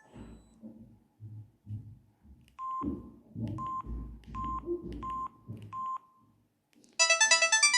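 Samsung SGH-C170 mobile phone keypad: soft key clicks, then five short beeps about 0.7 s apart as buttons are pressed. About seven seconds in, one of the phone's polyphonic ringtones starts playing loudly.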